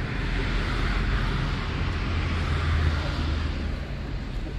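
A vehicle passing on the road: tyre and engine noise that swells with a low rumble, then fades.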